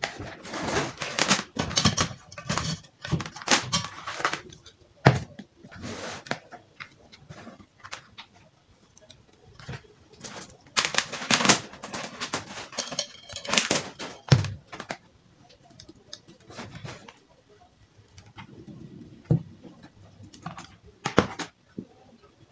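Irregular clicks, knocks and rustling from hands handling a small amplifier box and loose speaker drivers on a table, and plugging speaker wires into the amplifier's terminals.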